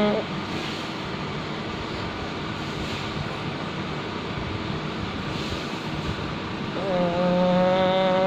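Pug snoring in its sleep: the end of one long, steady, pitched snore right at the start, then a softer steady breathing noise, then another pitched snore of about two seconds starting near the end. The uploader calls such snoring natural for a pug and nothing to worry about.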